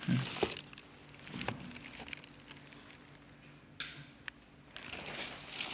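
Light handling noises from work on a small device: a few scattered small clicks and taps, then some rustling near the end.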